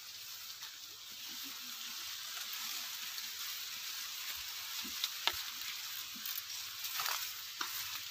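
Dry sugarcane leaves rustling and crackling as people walk through a cane field, brushing past stalks and treading on fallen leaves: a steady dry hiss with a few sharper snaps past the middle.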